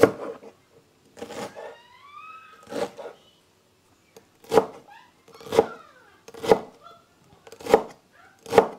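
Chef's knife chopping fresh coriander on a wooden chopping board: single knocks of the blade on the board, about one a second.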